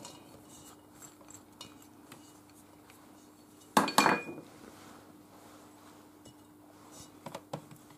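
A small dish clinking and knocking against a stainless steel mixing bowl as candied fruit is tipped in, with two sharp ringing clanks about four seconds in and a few light clinks near the end.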